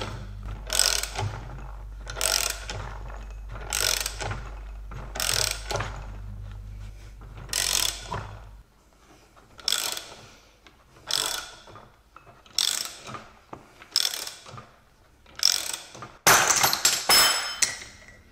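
Ratchet wrench cranking the forcing screw of a bearing puller and splitter to press a tapered roller bearing off a differential pinion shaft: a run of ratcheting strokes about every second and a half, each a short burst of pawl clicks. Near the end comes a louder, longer metallic clatter with some ringing as the parts are handled.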